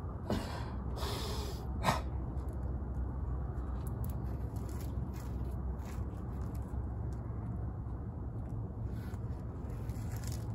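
Steady low outdoor background hum. Two short hissing exhales from a person exercising come in the first two seconds, and a sharp click follows about two seconds in.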